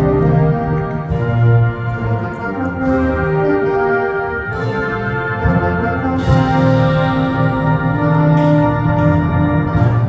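Military concert band of brass, saxophones and woodwinds playing a piece in sustained chords, with a crash about six seconds in.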